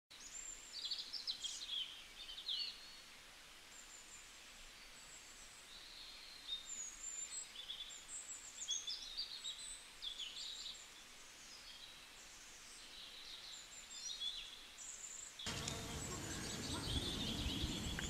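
Small songbirds chirping and twittering in quick, high notes. Near the end the sound cuts suddenly to a louder buzzing of insects, with birds still calling over it.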